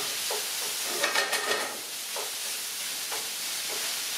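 Ground turkey and vegetables sizzling in a skillet on a gas stove. A wooden spoon stirs them, scraping the pan about once a second.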